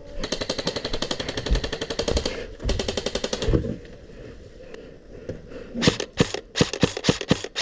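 Airsoft electric rifle firing: two full-auto bursts of rapid, evenly spaced shots, the first about two seconds long and the second under a second. After a pause, a string of single shots fired at uneven spacing near the end.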